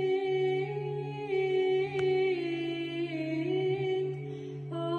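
A woman's solo voice singing Byzantine chant in long held notes that step up and down, over a steady low drone, the ison. Her line breaks off briefly about four seconds in and returns on a higher note.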